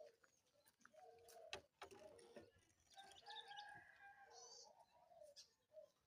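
Birds calling quietly: several held low cooing notes, a few short high chirps, and faint scattered ticks.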